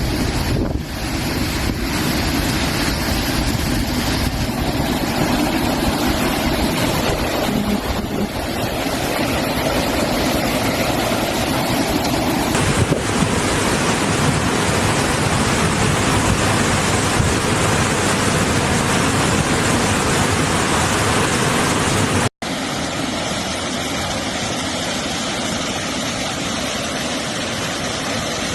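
Loud, steady rush of hurricane wind and surf, with wind buffeting the microphone. It cuts out for an instant about three-quarters of the way through and comes back slightly quieter.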